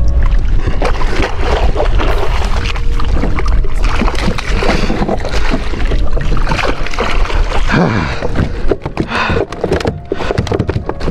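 Wind rumbling on the microphone over water splashing and knocks against a plastic kayak as a hooked flounder is brought alongside and scooped into a landing net.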